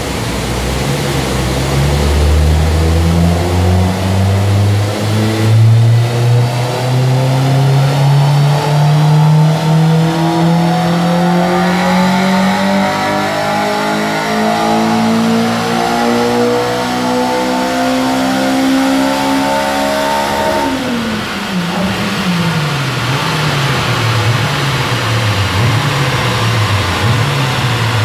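Honda Civic Type R's K20A2 2.0-litre four-cylinder VTEC engine with a Piper exhaust, run on a chassis dyno: it pulls steadily up through the revs in one gear for about twenty seconds toward its 9,000 rpm peak, then the throttle closes and the revs fall sharply. After that the revs rise and fall in short swings about once a second as the rollers slow.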